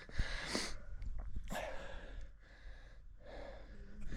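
A person breathing hard in loud, separate puffs about every one to two seconds, out of breath from a steep uphill hike. A few short clicks are heard between the breaths.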